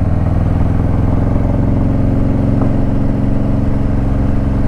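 Harley-Davidson Ultra Limited's V-twin engine running at a steady speed under way, its pitch holding level.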